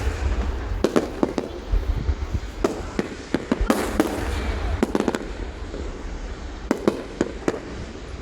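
Aerial fireworks going off: many sharp bangs and crackles at irregular intervals over a continuous low rumble of distant bursts, with a short lull past the middle.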